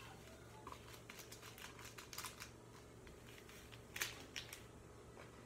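Faint, irregular crackling clicks of foam-bead slime being squeezed and pulled apart by hand, with one sharper click about four seconds in.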